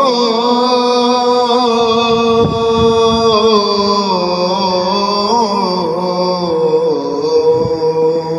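A single long held note, sustained for about nine seconds with a slight waver in pitch, fading near the end.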